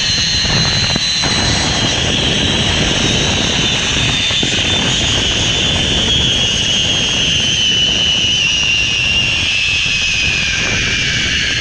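Zipline trolley pulleys running along the steel cable with a high whine that slowly falls in pitch, over heavy wind noise on the microphone.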